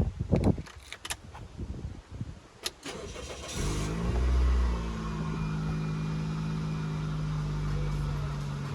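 A few clicks and knocks, then about three and a half seconds in a Toyota Yaris 1.3 VVT-i petrol engine starts, flares briefly and settles into a steady idle. The owner says the engine hesitates and misfires.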